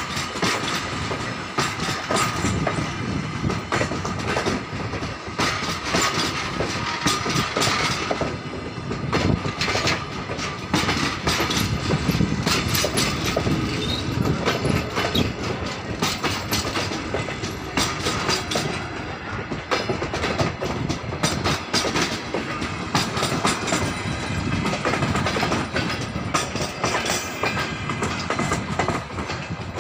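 Russian Railways passenger coaches rolling past at close range as the train pulls out of the station, their wheels clicking and clattering over the rail joints in a continuous clickety-clack.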